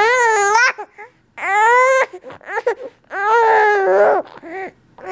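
A 15-week-old baby fussing face-down on her tummy: three drawn-out whiny cries, each under a second, then a short one near the end.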